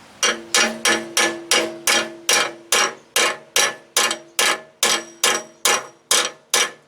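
Hammer striking steel in a steady run of about eighteen blows, roughly three a second, each with a short metallic ring: knocking at a seized, rust-bound broken bolt.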